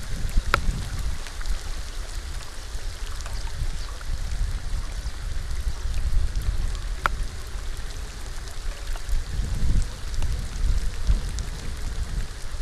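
Steady rain falling, with individual drops ticking sharply close to the microphone now and then. A fluctuating low rumble runs underneath and is the loudest part.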